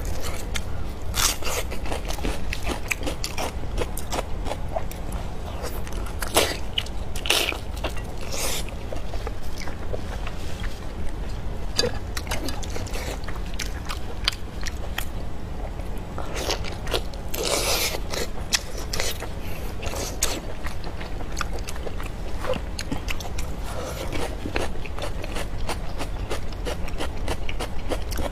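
Close-miked eating sounds of braised lamb intestines in sauce: wet, sticky handling as gloved hands pull the intestines apart, with chewing and many small mouth clicks. A few longer, louder wet mouth sounds stand out, the biggest about two-thirds of the way through, over a steady low hum.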